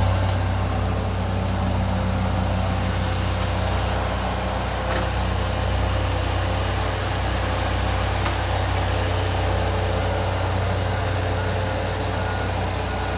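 Engine of a heavy work vehicle running steadily at a constant speed, a low, even hum with no change in pace.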